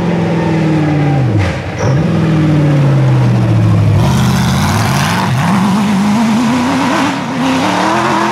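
Off-road race buggy engine at high revs: its pitch drops twice as the throttle comes off, then climbs in steps as it accelerates hard. From about four seconds in a rushing hiss of tyres on loose dirt joins it.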